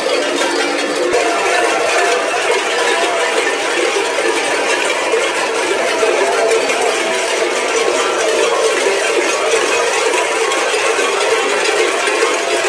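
Many large bells worn at the waists of Didi carnival costumes clanging together in a dense, unbroken jangle as the costumed bell-wearers move as a group.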